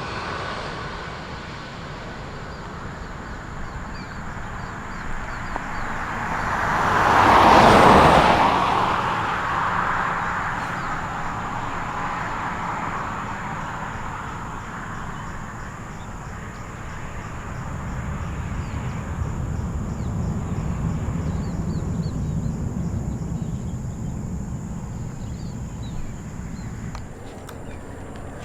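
Vehicle noise at the edge of an airport. Something passes close, rising to a loud peak about eight seconds in and falling away within a few seconds. A lower rumble swells and fades around twenty seconds in.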